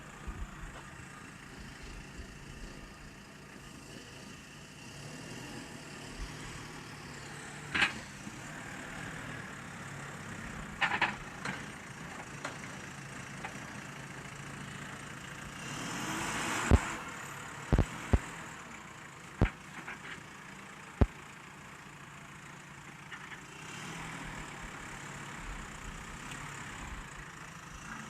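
Backhoe loader's engine running steadily, with about half a dozen sharp knocks scattered through, most of them bunched a little past halfway.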